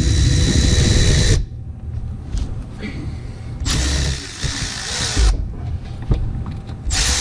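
Handheld power tool run in three bursts of one to two seconds each, with a steady high whine in each burst, quieter pauses of low rumble and clatter between them.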